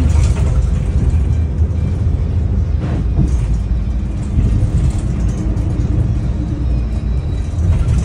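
Daewoo FX116 bus engine running under way, heard from inside the passenger cabin as a steady low rumble.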